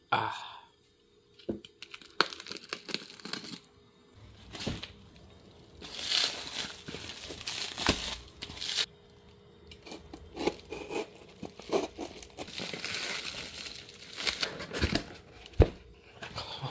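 Clear plastic wrap being cut with a utility knife, torn and crinkled off a cardboard box in irregular rustling bursts, with sharp clicks and knocks as the box is handled and its flaps opened.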